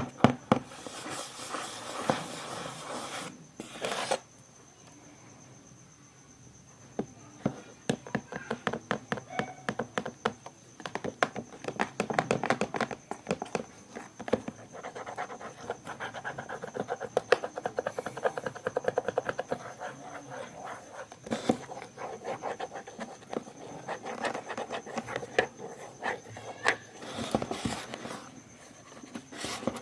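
Hands handling and opening LED-light packaging: runs of scratching, rubbing and small clicks and taps, with a quiet pause about four to seven seconds in. A faint steady high tone sits underneath.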